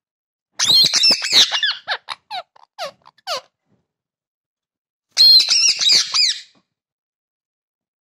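Rose-ringed parakeet calling in two loud bouts of high-pitched squawks. The first starts about half a second in and trails off in a few short falling notes. The second comes about five seconds in.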